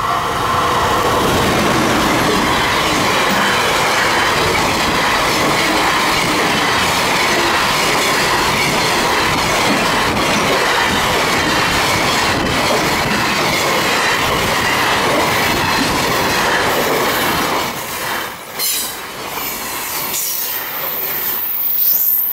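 Container freight train hauled by an EF210 electric locomotive passing close by: a steady, loud rush of wheels and wagons rolling over the rails with rhythmic clatter. It eases off about three-quarters of the way through, and a thin high wheel squeal comes in near the end.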